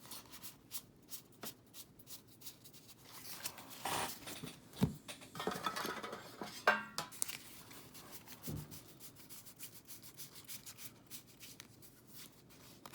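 Trading cards being handled and flipped through by hand: soft rubbing and sliding of card stock with many light clicks. There are a few louder brushes about four and seven seconds in.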